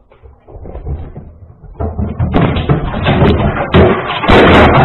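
Loud, rough thumping and clattering through a security camera's microphone as a cat jumps onto furniture, building from about half a second in and loudest from about two seconds on.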